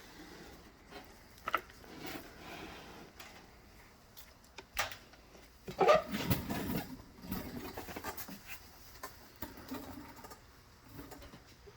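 Irregular knocks, scrapes and rubbing of something being handled, with a louder clatter about six seconds in.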